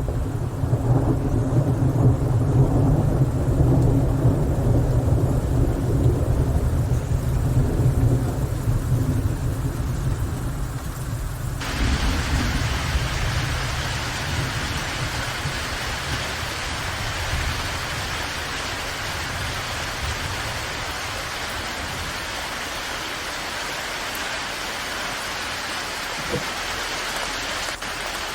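Rainstorm: a deep rolling rumble of thunder for the first ten seconds or so, then an abrupt change to a steady hiss of heavy rain.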